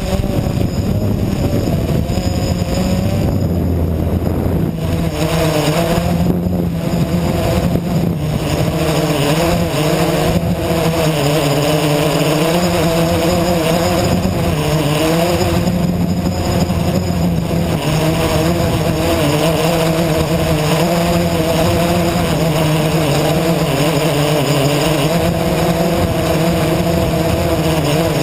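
Blade 350 QX quadcopter's brushless motors and propellers whining steadily, heard from the craft's onboard camera, the pitch rising and falling as the throttle changes.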